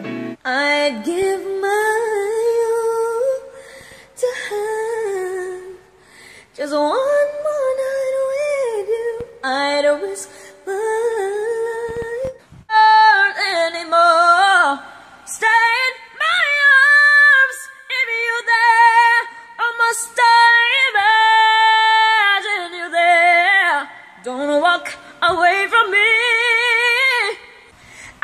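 A woman singing unaccompanied in phrases with short pauses, climbing to high held notes with vibrato and quick runs in the second half: voice impressions of pop divas' singing styles.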